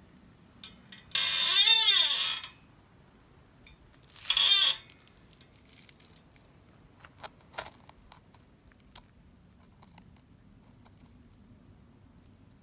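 Two loud, harsh squeals whose pitch rises and then falls, one about a second in and a shorter one a few seconds later. Then a few light clicks and scrapes of metal tweezers picking at crumbly sandstone.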